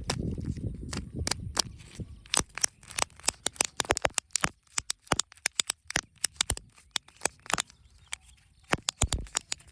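Wrappers and packaging being handled and opened, crinkling and crackling in a dense run of sharp clicks. A low rumble at the start dies away within about two seconds.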